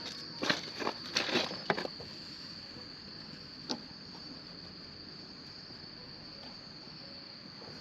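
Insects chirring in one steady high tone, with a campfire crackling and popping several times in the first two seconds and once more near four seconds.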